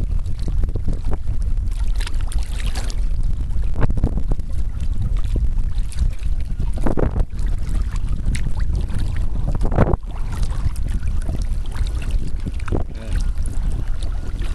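Wind buffeting the microphone as a steady low rumble, with a few scattered splashes of a kayak paddle in choppy water.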